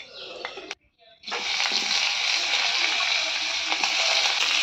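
A few metal clinks of a spoon against an iron wok, then, about a second in, sliced onions hit the hot oil and sizzle loudly and steadily.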